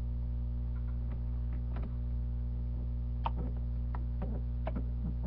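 Steady electrical mains hum, with a few faint scattered clicks.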